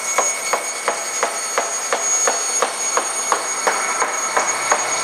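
Horizontal bandsaw with a 1-inch, 10-tooth-per-inch hook-tooth blade cutting horizontally through a bathtub as the powered table feeds it at about 1 inch per second. The sound is a steady high whine with a regular tick about three times a second.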